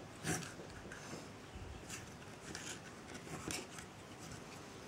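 Faint ticks and crackles of a soldering iron tip working a blob of molten solder on steel washers, over a steady low hiss, with a few sharper clicks spread through.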